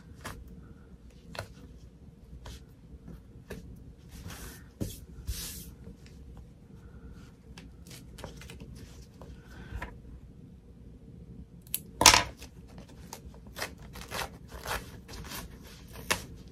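Stiff tearaway embroidery stabilizer being torn off the stitching of a small fabric zipper bag in a series of short rips, with one sharper, louder rip about three-quarters of the way through.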